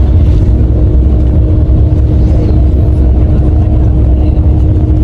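A moving bus, heard from inside the passenger cabin: a deep, steady rumble of engine and road noise, with a faint steady hum over it.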